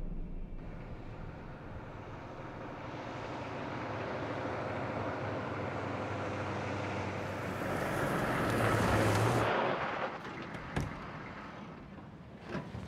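Pickup truck driving up a dirt road, growing louder to a peak about nine seconds in, then stopping suddenly about ten seconds in. A few sharp clicks and knocks follow near the end as its doors open.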